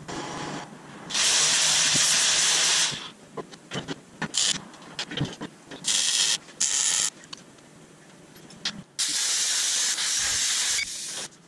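Repeated bursts of loud hissing, like pressurised gas being released: one about two seconds long, several short blasts, then another of nearly two seconds near the end, with small clicks and knocks between.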